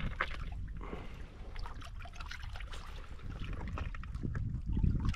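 Shallow water trickling and lightly splashing around hands holding a barramundi in the shallows, in many small irregular ticks and splashes over a steady low rumble.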